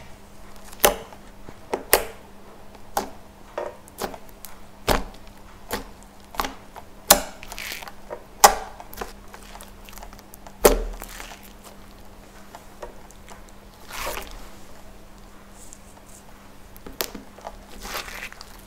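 Slime being squished, pressed and stretched by hand: irregular sharp clicks and pops, roughly one a second, with softer squelches between them.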